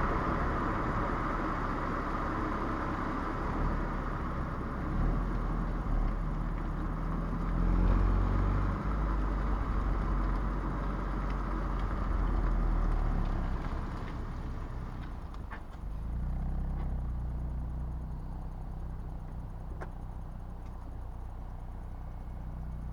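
Renault Clio 1.3 TCe 130's turbocharged four-cylinder petrol engine running. It is louder at first, then settles to a steadier, quieter running about two-thirds of the way through.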